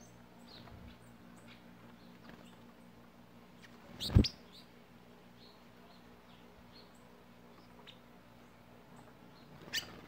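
Small songbirds at a backyard feeding table giving short, scattered high chirps. A loud thump about four seconds in and a sharper click near the end stand out over a faint, steady low hum.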